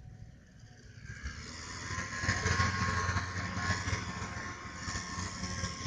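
Small petrol engine of lawn-care power equipment running steadily, fading in about a second in and holding at a moderate level.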